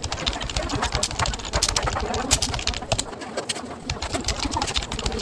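A person slurping and chewing noodles close to the microphone: a dense, irregular run of wet mouth clicks and smacks.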